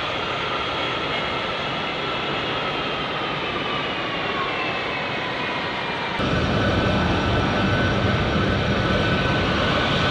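Boeing C-17 Globemaster III's four Pratt & Whitney F117 turbofans running, a steady jet whine that drifts slightly lower in pitch. About six seconds in it changes abruptly to a louder run with more low rumble and a steady high whine.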